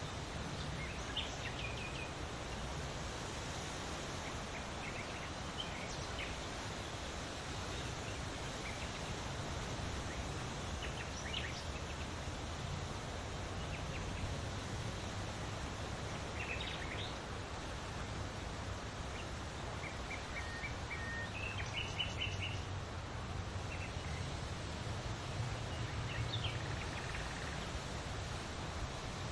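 Leaves rustling in the wind as a steady hiss, with birds chirping in short, high, scattered calls; a quick run of repeated chirps comes a little past the middle.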